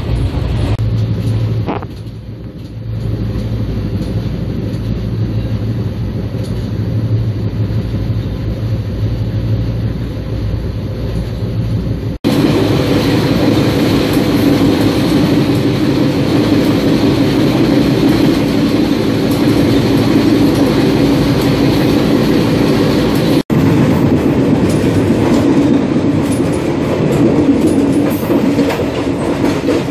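Moving passenger train heard from inside a sleeper coach: a continuous running rumble of wheels on rail, with a steady low hum at first. About twelve seconds in, after a brief dropout, it turns louder and fuller, and it stays so after a second dropout; at the end it is heard at the coach's open door.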